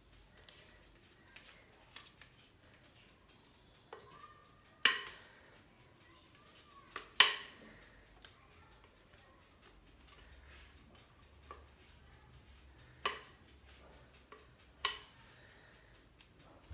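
Spatula knocking against the rim of a mixing bowl as sponge-cake batter is scraped out onto a baking tray: scattered sharp taps, the two loudest about five and seven seconds in, and a few more near the end.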